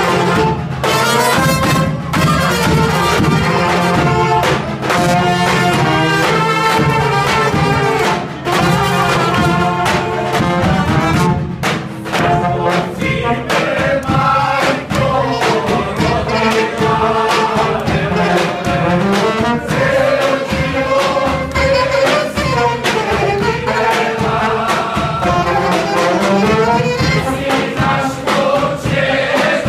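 Music led by brass instruments such as trumpets and trombones, playing a melody over a steady drum beat.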